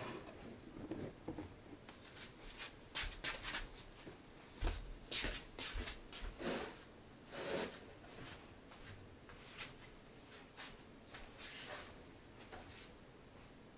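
Faint handling noises in a small room: scattered light clicks and rustles with a soft knock about halfway through, thinning out near the end.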